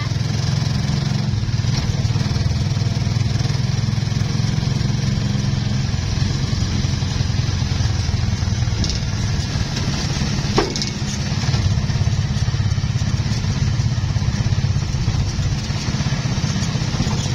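Motorcycle engine of a tricycle running steadily while under way, heard from inside the sidecar, with a single sharp knock about ten and a half seconds in.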